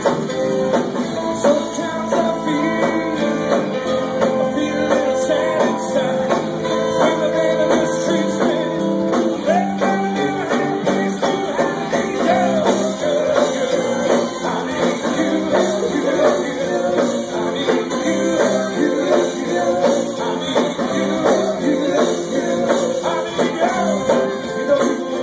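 Live rock band playing: electric guitar, bass, drums and saxophone with a group of singers. Held horn-like notes carry the first part, and a lead vocal takes over from about ten seconds in.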